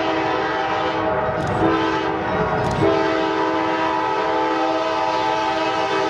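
Multi-tone air horn of an approaching CSX diesel freight locomotive: a long blast ending about a second and a half in, a short blast, then a long blast from about three seconds in, over the low rumble of the train. The long, short, long pattern is the close of the standard grade-crossing signal.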